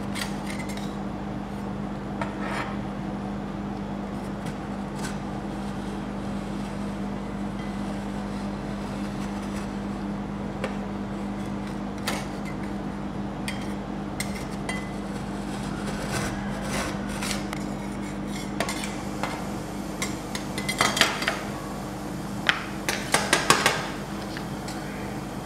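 Steel spatulas scraping and clinking on the frozen steel plate of a rolled-ice-cream pan, over a steady low hum from the pan's refrigeration unit. The scrapes come singly at first, then in two quick runs of louder clatter in the last few seconds.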